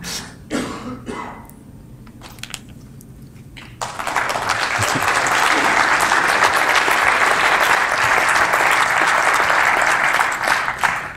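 Audience applauding, starting about four seconds in and holding steady for some seven seconds before dying away near the end.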